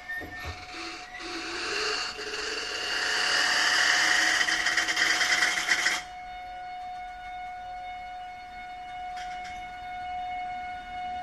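Freight wagons rolling past on curved track, their wheels squealing: several high-pitched steady tones over loud rolling noise. The rolling noise drops off sharply about six seconds in, leaving fainter squealing tones and a steady lower whine.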